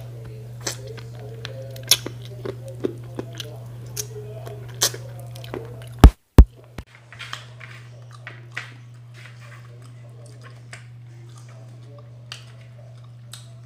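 Close-up chewing and lip-smacking, many small wet mouth clicks, as a person eats with their hands. Two loud thumps about six seconds in, over a steady low hum.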